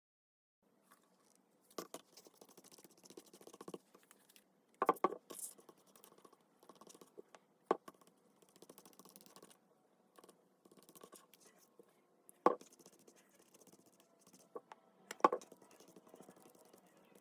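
Paper and cardstock being handled: rustling and scraping with about five sharp snips or taps spread through.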